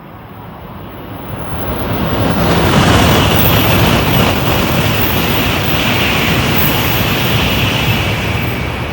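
A Sanyo Shinkansen bullet train passing through the station at high speed without stopping: a loud rush of air and running noise that swells over the first few seconds, holds with a hiss and deep rumble, then begins to fade near the end.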